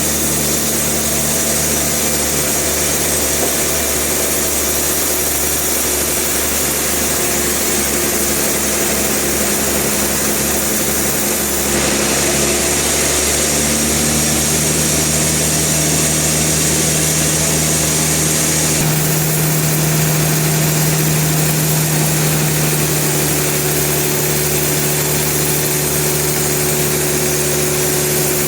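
Sawmill machinery running steadily, with a high hiss joining in about twelve seconds in and the low running note growing stronger about seven seconds later.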